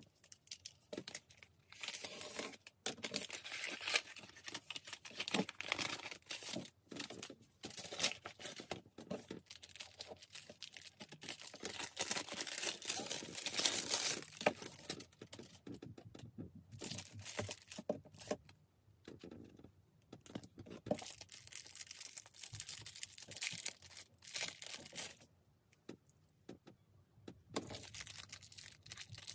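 A padded paper mailer being torn open by hand, then clear plastic packaging crinkled and unwrapped, in irregular rustles and tears with a few short pauses.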